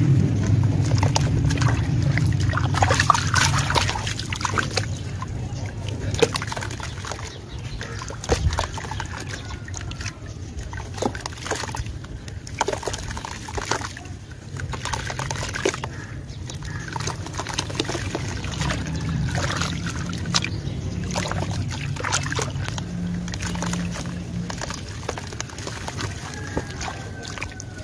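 Hands crumbling and squeezing a lump of dry red dirt into a tub of muddy water. Many small splashes and sloshes are heard as pieces and hands drop into the slurry and stir it.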